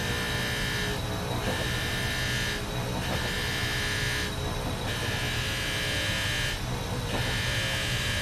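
Bench grinder motor running with a steady hum while a steel fitting is pressed against the spinning wheel in five spells of grinding, each a second or so long with short breaks between, smoothing the cut end of the fitting.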